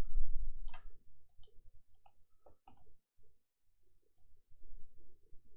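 Computer mouse clicking: about half a dozen separate, sharp clicks spread out at irregular gaps. A low rumble-like thump comes at the very start.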